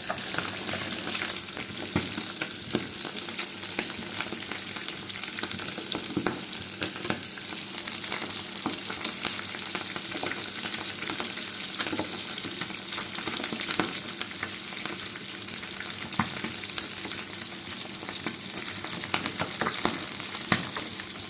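Food frying in a pan: a steady sizzle with constant crackling, and scattered sharp clicks as it is stirred.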